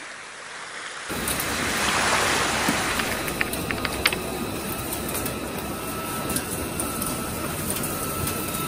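Gantry CNC drilling machine boring an 80 mm hole in steel plate with a U drill (indexable-insert drill): a steady rushing cutting noise with scattered sharp clicks, and a faint thin high whine from about halfway. It starts about a second in, after a rising hiss.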